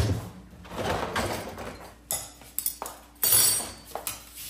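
Glassware and dishes clinking and knocking as they are lifted out of a dishwasher's wire racks and set down. There is a sharp knock right at the start, the loudest sound, then scattered clinks and a ringing jangle about three seconds in.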